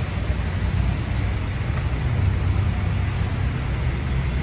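City street traffic: a steady low engine rumble from motor vehicles close by.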